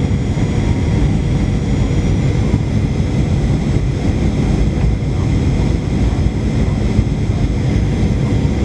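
Boeing 737-800's CFM56-7B turbofan engines and airflow heard inside the cabin during the descent on approach: a steady low rumble with a faint steady whine above it.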